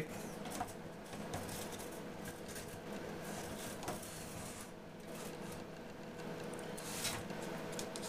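Faint scraping and light clicks of the metal motherboard tray of an HP MediaSmart EX470 server being worked slowly onto tight rails inside its case, with a slightly louder scrape about seven seconds in.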